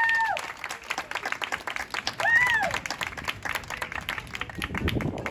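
Audience applauding with dense hand clapping that thins out near the end. A high voice calls out over the clapping at the start and again briefly about two seconds in.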